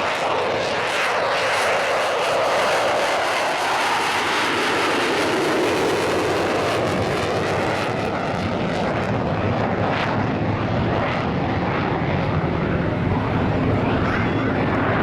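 Jet noise from a Boeing F/A-18F Super Hornet's twin General Electric F414 afterburning turbofans during a display flight: a loud, unbroken jet noise whose pitch slowly sinks in the first few seconds and then climbs again as the aircraft moves past.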